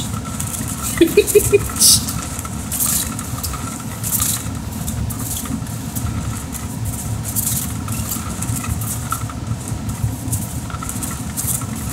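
A small motor running steadily, with scattered scratchy clicks and three short pitched squeaks about a second in.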